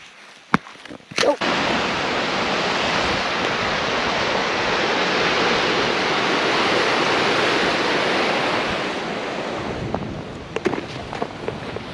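Two sharp cracks from boots on thin ice, then fast-flowing Hat Creek rushing over rocks in a steady wash of water noise that starts abruptly about a second in. Near the end it fades, and boots crunch on snow.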